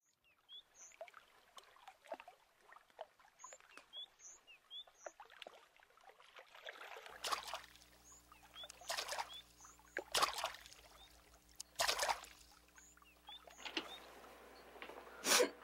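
Soundtrack of an animated scene playing back faintly: small bird chirps over gently lapping water. From about seven seconds in, a low hum comes up and a woman sniffs several times as she cries.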